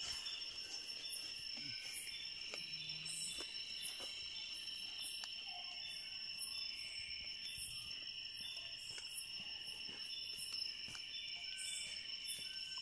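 Night insects chorusing: a steady, high, unbroken trill, with short, higher chirps repeating about once a second.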